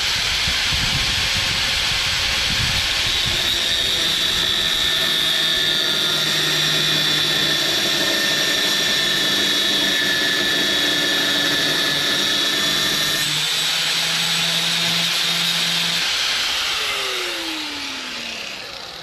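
Electric angle grinder cutting a slit into the steel bracket on a Craftsman LT1000 mower deck, running steadily with a high whine as the disc bites the metal. The cutting sound changes about 13 seconds in, then the grinder winds down with a falling pitch near the end.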